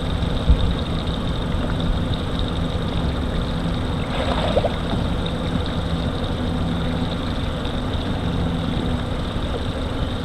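A boat's engine running steadily at idle.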